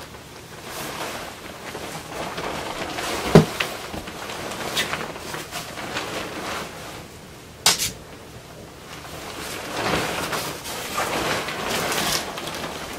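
Rustling of a feather-and-down comforter's crinkly shell fabric as it is lifted, shaken out and spread over a bed, in swells that come and go. A thump about three seconds in and a sharp click a little past halfway stand out above the rustling.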